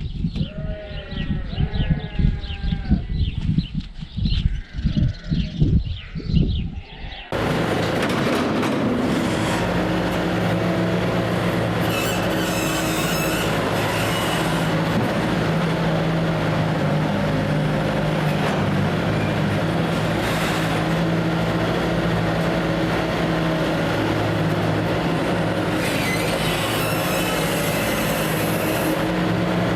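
Livestock calling, then a sudden cut to a large farm machine running steadily: a constant engine hum under loud rattling mechanical noise.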